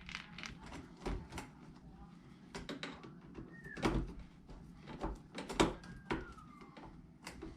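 Scattered clicks, taps and light knocks of a replacement hard drive being seated and screwed into an iMac's drive bay, with a couple of short squeaks; the loudest knock comes a little after halfway.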